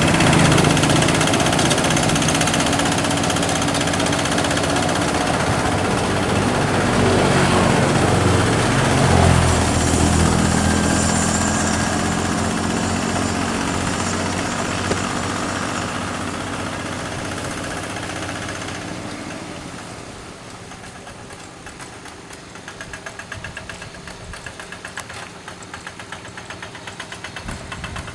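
Kubota RD85DI single-cylinder diesel engine of a Quick G1000 two-wheel tractor running steadily with a knocking beat. It is loud at first, then grows quieter about two-thirds of the way through.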